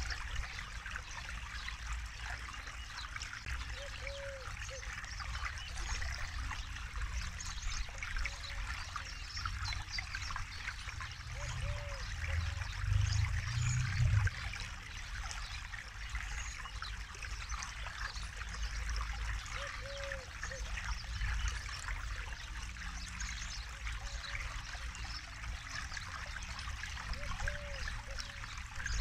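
Forest river flowing steadily, water burbling and trickling over stones. A deeper rumble swells briefly about halfway through.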